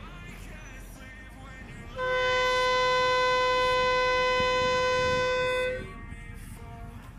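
Train horn: a locomotive air horn sounding one long, steady blast of several tones at once, lasting about four seconds and starting about two seconds in.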